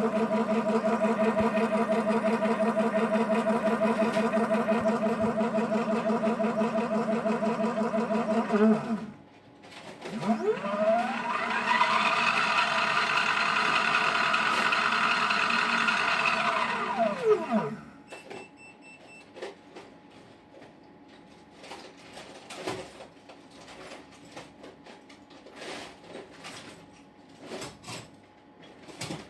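Brushless electric hub motor driven by a Kelly KBS48101X controller: a loud, steady, warbling electrical whine for about nine seconds that stops, then a smooth whine that rises in pitch as the motor spins up, holds, and winds down about seven seconds later. After that, only scattered faint clicks and knocks.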